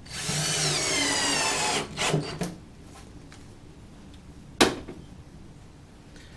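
Cordless drill driving a screw to fasten a metal gate handle to the plywood benchtop: one long whine falling in pitch, then two short trigger blips. A single sharp knock follows a couple of seconds later.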